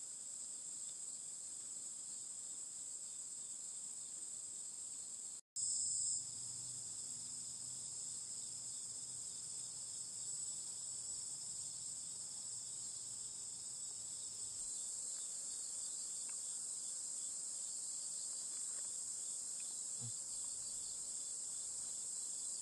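Steady high-pitched chorus of insects trilling, with a brief gap and a short louder patch about five seconds in.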